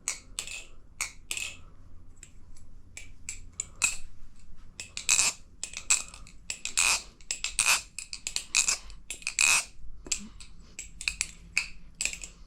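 Hazetac double-edge balisong trainer being flipped through a combo: a quick, irregular run of sharp clicks and clacks as the handles swing around and hit the tang and close, loudest in clusters around the middle.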